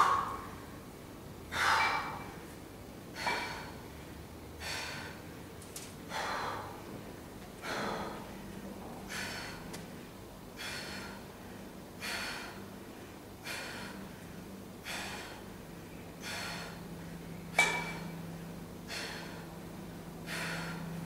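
A man breathing hard through repeated lying dumbbell presses, a sharp, forceful exhale with each rep, about one every second and a half.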